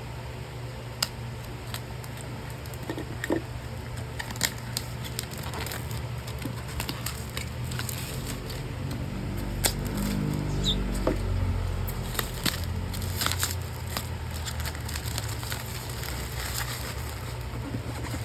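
Packaging and small parts being handled during an unboxing: scattered clicks, taps and crinkles of cardboard and plastic over a steady low hum.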